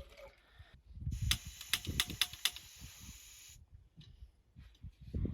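Camp stove burner hissing with escaping gas while its piezo igniter clicks about five times without lighting; the hiss cuts off suddenly after a few seconds.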